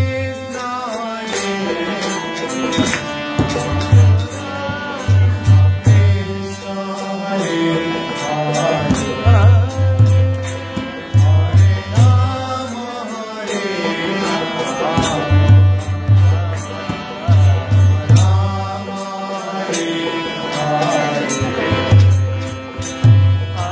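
Devotional kirtan: a man chants a mantra over a harmonium's sustained reed chords, with a drum beating a steady rhythm of low strokes and cymbal-like clicks on the beat.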